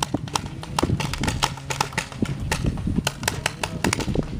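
Paintball markers firing: an irregular volley of sharp pops, several a second, over a low rumble.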